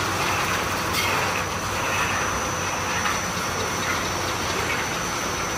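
Horizontal spiral strip accumulator running: steel strip feeding and coiling over its steel rollers with a steady metallic rolling rattle that swells and eases, over a thin steady high whine.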